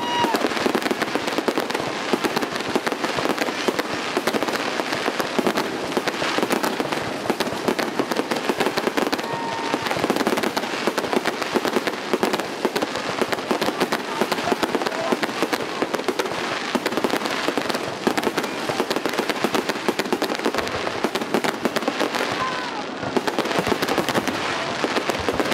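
Fireworks display: aerial shells bursting in a dense, continuous run of bangs and crackling.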